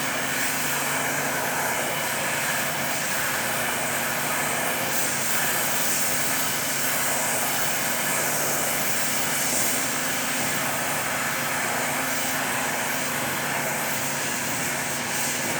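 Steady, unchanging machine noise: an even whir with a low hum underneath, like a motor or fan running continuously.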